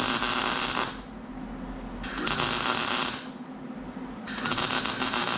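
Wire-feed welder crackling in three short bursts of about a second each, stitch-welding a 1/8-inch steel plate to a race car's tube chassis.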